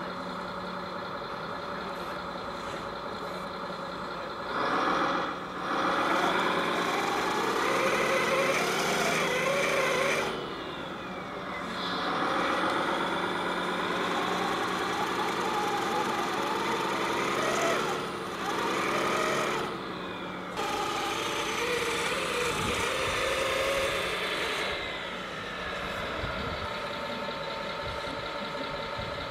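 Radio-controlled 6x6 tipper truck model's engine sound, idling and then revving up and down several times as the truck works in loose gravel.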